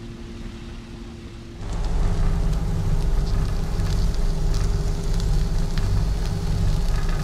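Shredded red cabbage sizzling and crackling in a frying pan, over a steady low hum. It starts abruptly about a second and a half in, after a quieter stretch.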